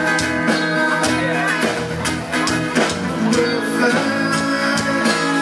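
A man singing into a handheld microphone over instrumental accompaniment with guitar.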